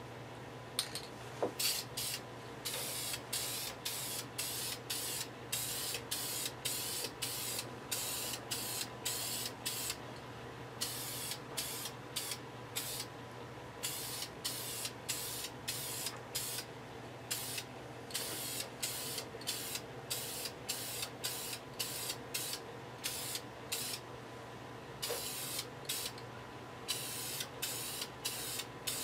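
Aerosol spray can of black paint spraying in short hissing bursts, about two a second, as light passes are laid over a masked checkerboard; the bursts pause twice for a second or few.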